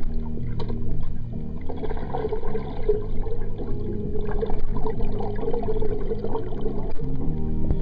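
Pool water heard from under the surface as a swimmer moves through it: a steady, dull, muffled sloshing and rumbling with no sharp highs.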